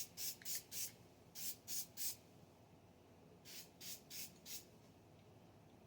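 Aerosol spray-paint can fired in short bursts of hiss, about eleven quick sprays in three groups with short pauses between.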